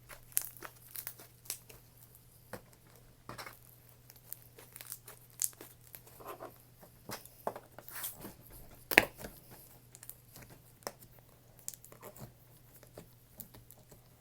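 Slime being squished and stretched by hand, giving irregular sticky clicks, crackles and small tearing sounds, with one louder pop about nine seconds in. A faint steady low hum lies underneath.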